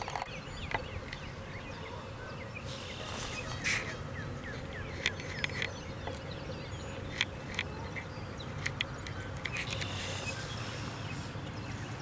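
Many short chirping calls, bird-like, over a steady outdoor hiss, with a few sharp clicks scattered through.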